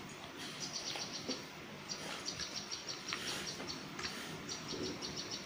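Small birds chirping in quick runs of short, high notes, with a few soft slurps from a calf drinking water from a steel bowl.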